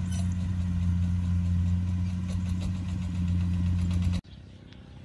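An engine running steadily with a low, even hum. It cuts off suddenly about four seconds in, leaving much quieter open-air sound.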